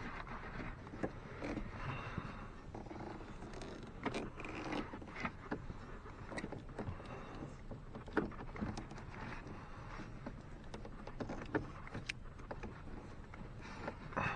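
Vinyl electrical tape being peeled off the roll and wrapped around a pair of wires. Short rasps of tape come off the roll, amid rustling and scattered small clicks from handling the wires.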